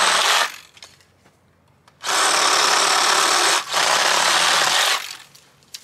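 Reciprocating saw (Sawzall) cutting through a tree branch in bursts: a short cut that stops about half a second in, then after a pause a longer cut of about three seconds with a brief break in the middle.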